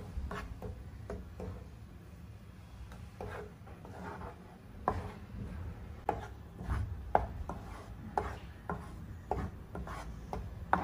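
Wooden spatula stirring thick star fruit puree in a nonstick kadai, scraping and knocking against the pan in irregular strokes.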